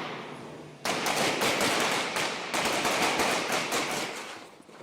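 Airsoft-style toy guns firing rapid automatic bursts of many quick shots. The firing starts about a second in, pauses briefly in the middle and fades out near the end.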